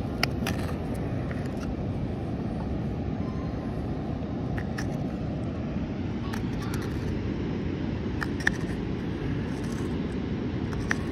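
Steady rushing of a river waterfall, with a few sharp clicks from a hook knife cutting into a butternut spoon bowl. The loudest click comes about two-thirds of the way through.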